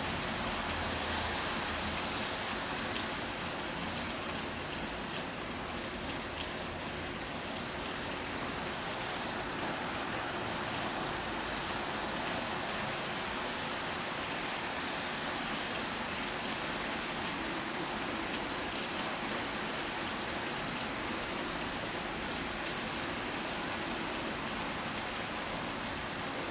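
Steady rain falling on surfaces: an even hiss with the odd faint drop tick.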